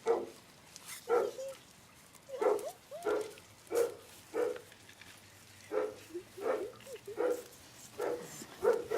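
Young puppy giving short, high yips and little barks, about a dozen of them spaced one or two a second, some with a bending pitch.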